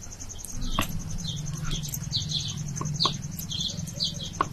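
Outdoor ambience: a steady, pulsing high insect trill, like crickets, with small birds chirping over and over. A few sharp clicks are scattered through it, and a low hum runs from about a second in until near the end.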